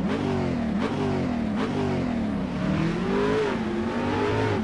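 A car engine revving, its pitch swinging up and sinking back several times with a few sharp breaks.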